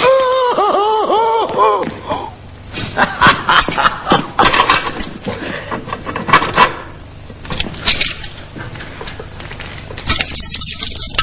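A man's warbling yell for the first two seconds, then a string of sharp metallic clanks and knocks from a wrench on washbasin tap fittings. About ten seconds in, water bursts from the tap with a loud hissing spray.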